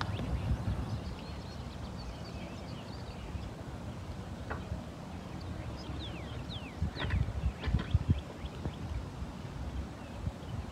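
Open-air ambience: a fluctuating low rumble of wind on the microphone, with a few short, falling bird chirps about six to seven seconds in and some soft thumps around seven to eight seconds in.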